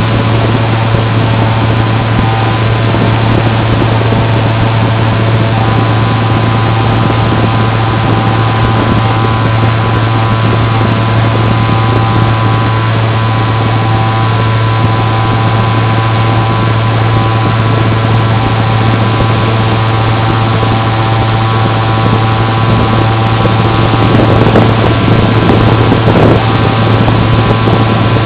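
Steady drone of an FPV model aircraft's motor and propeller, picked up by its onboard microphone: a strong low hum under a stack of steady tones. It gets slightly louder for a few seconds near the end.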